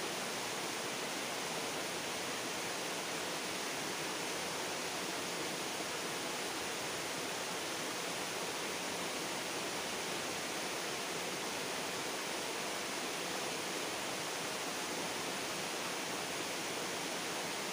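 Steady rushing of flowing stream water, an even hiss that does not change.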